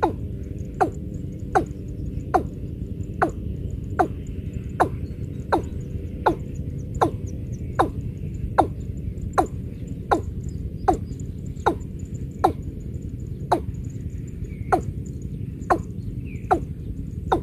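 Watercock calling: a short, deep, dropping hoot repeated evenly, a little more than once a second, over a steady low background noise.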